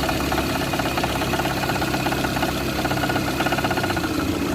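Car engine idling with a rapid, steady rhythmic knock, heard during a test that cuts out one cylinder at a time to find which cylinder the knock comes from.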